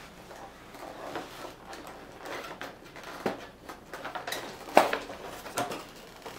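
Toy packaging being handled and worked at by hand: rustling and scattered sharp clicks, the loudest nearly five seconds in.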